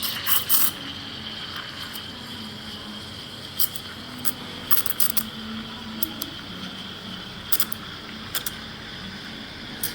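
Espresso machine steam wand steaming milk: a steady hiss with a high whine and a low hum, broken by scattered light clicks and clinks.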